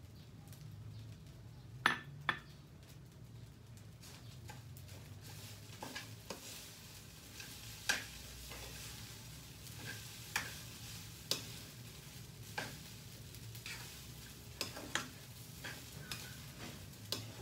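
A spatula stirring and scraping food in a frying pan, knocking against the pan every second or two, as leftover menudo is mixed into fried rice over a faint sizzle.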